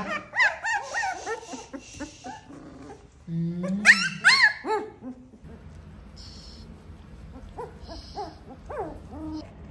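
Young puppies whining and yelping: a rapid run of short, high cries through the first half, then a few fainter whimpers near the end.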